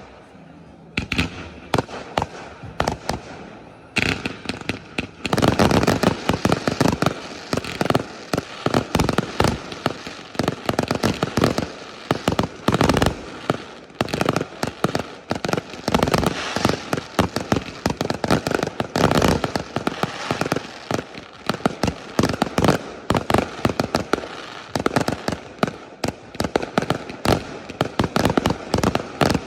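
Aerial fireworks display: a few scattered bangs at first, then from about five seconds in a dense, continuous barrage of shell bursts and crackling.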